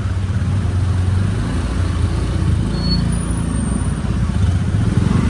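Small motor scooter engines running at low speed in slow, jammed traffic, heard from the back of a moving scooter: a steady low engine hum.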